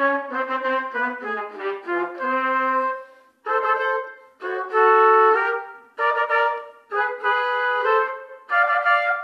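Two trumpets playing a duet in harmony: a moving lower part under a higher line at first, then short phrases broken by brief pauses from about three seconds in.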